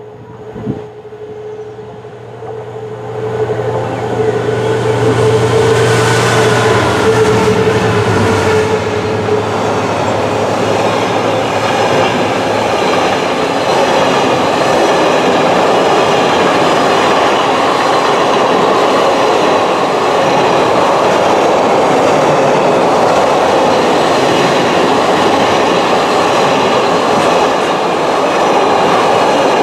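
Class 66 diesel locomotive approaching and passing at speed, its steady engine hum and whine growing louder about three seconds in, with a single knock under a second in. The intermodal container wagons then roll past in a steady rumble with clatter over the rail joints.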